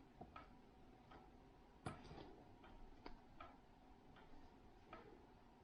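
Faint, irregular clicks of plastic LEGO pieces being handled and fitted together, with one sharper click about two seconds in.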